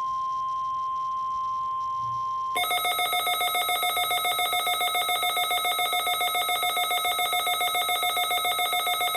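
NOAA Weather Radio warning alarm tone, a steady 1050 Hz tone, for about two and a half seconds. Then the Midland WR-400 weather radio's own alert alarm cuts in: a loud electronic beep pulsing rapidly, several times a second. This is the sign that a warning, here a snow squall warning, is being received.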